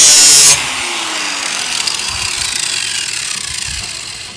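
Ryobi angle grinder grinding the steel edge of a lawn mower blade held in a sharpening jig, loud until about half a second in. Then it comes off the blade and runs on more quietly, its pitch falling as it winds down and fades.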